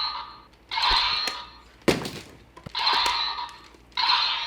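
Electronic sound effects from a Kamen Rider Revice DX toy weapon's speaker: a ringing, chime-like effect that repeats about once a second, fading after each one, with a sharp thud about two seconds in.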